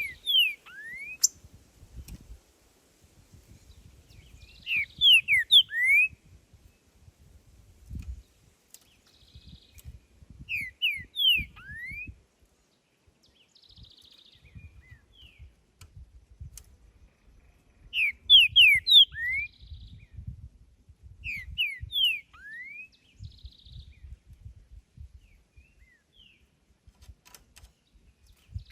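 Green-winged saltator (trinca-ferro) singing: short phrases of a few loud, clear whistled notes that slide steeply in pitch, repeated every few seconds.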